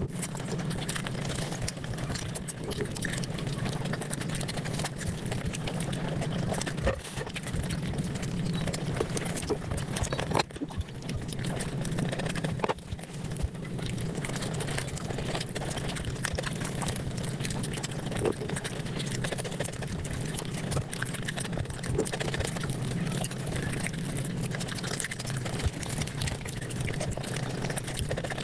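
Close-miked eating sounds sped up about five times: a dense, steady stream of rapid chewing and mouth-smacking clicks.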